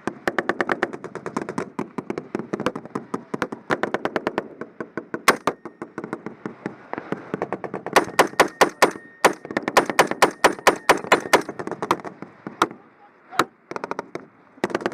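Sustained automatic gunfire in rapid bursts, a string of sharp cracks several a second, with the loudest run of shots from about eight to eleven seconds in and a short lull near the end.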